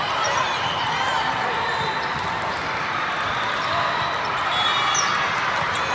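Busy volleyball gym: volleyballs bouncing on the hard court floor under a steady wash of overlapping voices.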